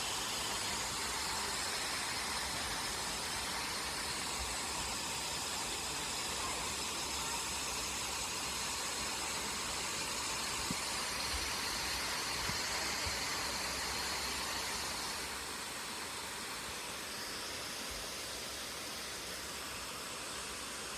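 Tall waterfall plunging into its pool at close range, a steady hiss of falling water that drops slightly in level about fifteen seconds in.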